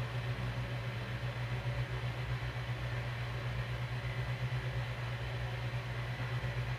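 Steady low machine hum with a slight flutter, running evenly throughout.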